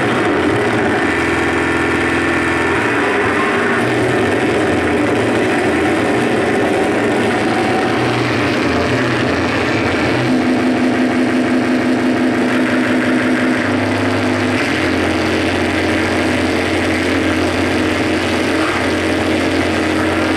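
Live noise music from a tabletop rig of patched effects pedals and synthesizer modules: a dense, engine-like wall of droning noise with low held tones that step to new pitches every few seconds.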